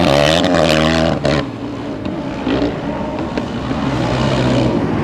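Sidecar motocross outfit's engine revving hard with a wavering note, then easing off about a second and a half in, with a lower, softer engine note later on.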